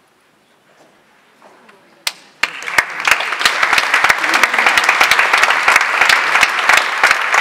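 Audience applauding: after about two seconds of hush a single sharp clap, then clapping breaks out and quickly builds into dense, steady applause.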